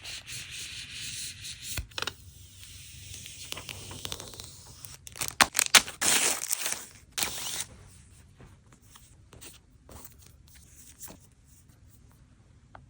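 Plastic film and packaging being peeled and torn by hand, loudest in a stretch of ripping and crinkling about five to seven and a half seconds in, with scattered light taps and handling noises.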